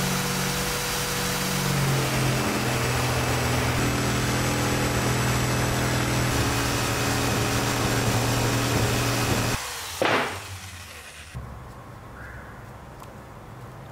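Electric jigsaw cutting through a thick wooden beam, running steadily with its pitch dropping slightly as it bites. It stops abruptly, followed by a single short loud sound, then only a low background.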